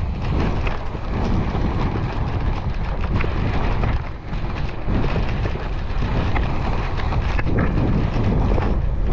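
Wind buffeting the microphone of a skier's camera during a run, with skis scraping and hissing over the snow.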